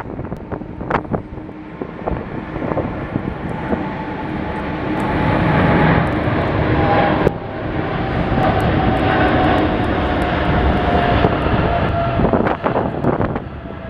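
Jet airliner's engines passing close by: a steady loud noise builds over a few seconds and holds, with a whine that slowly drops in pitch. Gusts of strong wind buffet the microphone near the start and end.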